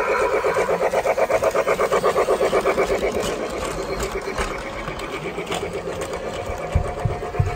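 Toy Polar Express train running on its plastic track, making a fast, even mechanical chugging that weakens after about four seconds. Two dull thumps come near the end.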